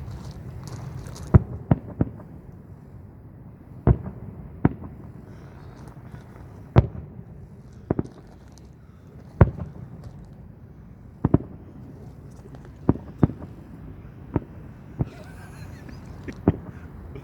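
Fireworks display: about fifteen sharp bangs of bursting shells at irregular intervals, some in quick pairs, over a steady low rumble.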